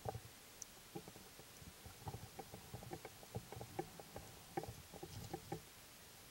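Underwater ambience: faint, irregular soft clicks and knocks over a low hiss, coming more thickly from about two seconds in.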